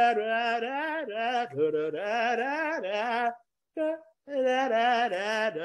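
A man singing a wordless tune with held, wavering notes, breaking off briefly a little past halfway.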